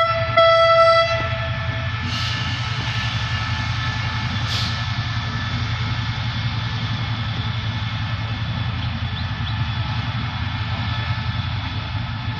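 SRT QSY-class diesel-electric locomotive sounding a short horn blast about half a second in, then its diesel engine running steadily as it draws slowly past into the station. Two brief hisses come at about 2 and 4.5 seconds.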